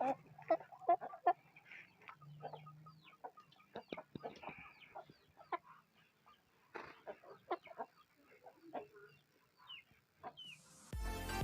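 Chicken clucking softly in short, scattered calls, with no snoring rattle in its breath: the bird has recovered from its respiratory illness after medication. Music starts near the end.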